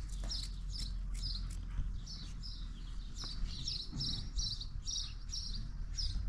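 A small bird chirping over and over, about two or three short high chirps a second, over a low steady rumble.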